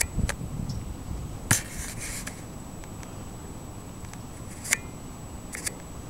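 Compact digital camera zooming in: sharp clicks of the zoom control and body, with a brief whir of the zoom motor after the loudest click about a second and a half in, and more clicks near the end. Under it runs a low steady rumble and a faint steady high whine.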